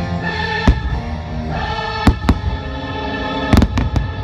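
Fireworks show music with a choir singing, punctuated by firework bangs: one under a second in, two about two seconds in, and a quick run of about four near the end.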